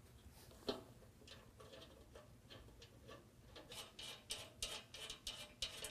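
Ratcheting wrench clicking faintly as the self-locking nuts on a license-plate bracket are tightened. A single click comes early, then a quick run of clicks, several a second, in the last two seconds.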